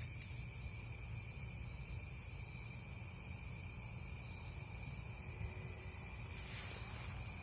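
Crickets chirping in a steady, high, continuous trill over a low rumble.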